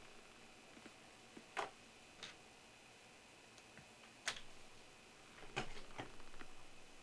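A handful of faint, separate clicks from a computer being operated, the loudest a little past the middle, over quiet room tone.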